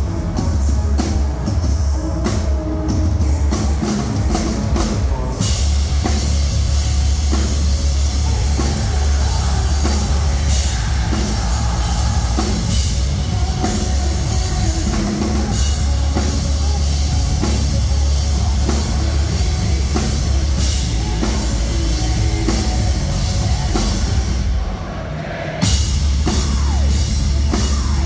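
Metalcore band playing live, with pounding drums and heavy, bass-laden distorted guitars. Near the end the band drops out for about a second, then the full band comes back in.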